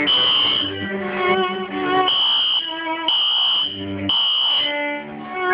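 Fire alarm horn sounding in loud high-pitched pulses about half a second long, three pulses a second apart and then a pause (the temporal-three evacuation pattern). Violins play shifting notes between the pulses.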